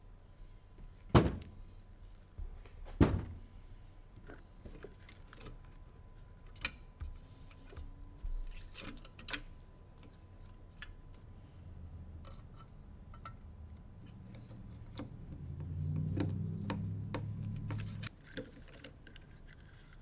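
Small parts being handled on a workbench: scattered light clicks and taps, with two loud knocks about one and three seconds in. A low hum builds in the second half and cuts off suddenly near the end.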